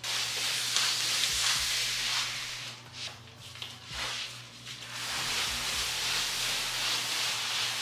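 Large flat-pack cardboard box scraping as it is dragged across the floor, a steady hissing scrape with short breaks about three and four seconds in.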